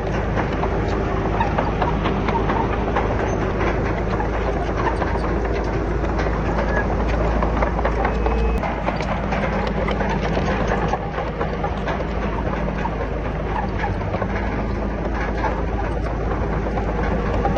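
Heavy diesel earthmoving machinery running steadily, with a low engine hum and constant metallic clanking and rattling; the engine note drops a little about halfway through.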